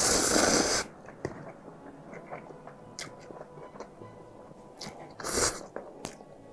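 Close-miked eating: a loud crunchy bite, then soft chewing and small mouth clicks, with a second crunch a little after five seconds in.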